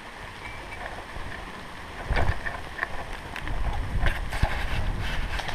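Handling noise on a head-worn action camera: a cloth hit rag and clothing brushing and knocking against it as the wearer moves, a low rumble with scattered clicks starting about two seconds in.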